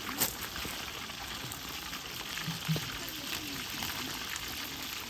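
Whole fish deep-frying in a large pan of hot oil over a campfire: a steady sizzle of bubbling oil with scattered pops and crackles.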